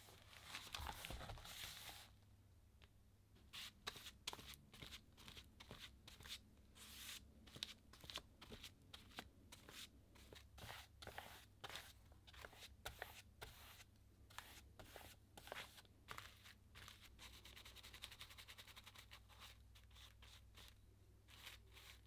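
Faint paper sounds as the thick pages of a stuffed art journal are riffled for about two seconds. Then a paintbrush drags thick black paint across a paper page in many short, scratchy strokes.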